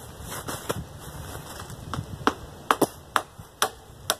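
Claw hammer nailing bark slabs onto a log roof frame: a series of sharp, irregular knocks, sparse at first and coming closer together after about two seconds.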